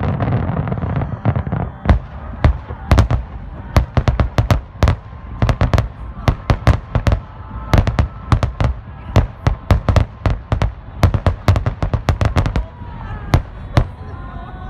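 Fireworks display: a heavy rolling rumble of bursts at the start, then a rapid barrage of sharp aerial-shell bangs, many in quick clusters, stopping about a second before the end.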